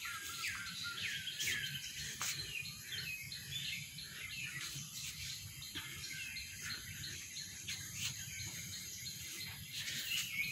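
Outdoor birds chirping over and over, short quick falling calls, over a steady high-pitched insect drone.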